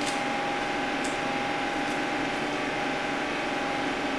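Steady machine drone of an electric fan or blower running, an even hum with a constant whine over it. A couple of faint light ticks sit on top, about a second apart.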